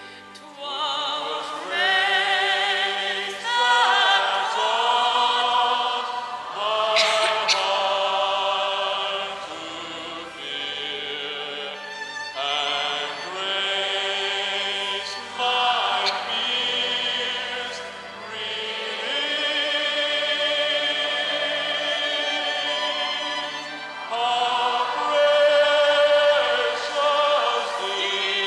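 High, operatic-style soprano singing with a wide vibrato, in long held phrases with brief breaks between them; other voices join at times.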